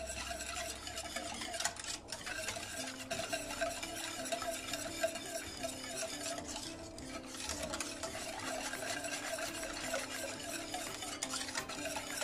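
Wire whisk beating a thin, cold milk, flour and starch pudding mix in a stainless steel pot: continuous rapid swishing of the liquid with light ticking of the wires against the pot, the raw mix being whisked smooth before heating.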